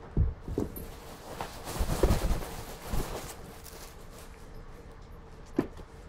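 Cardboard shipping box and its packing being handled: a couple of dull thumps at the start, a stretch of rustling and scraping with more thumps about two seconds in, then a single knock near the end.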